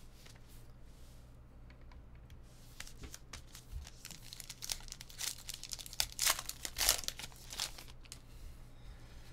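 Trading card pack wrapper crinkling and tearing as it is opened by hand, a run of sharp crackles that is busiest about three to eight seconds in.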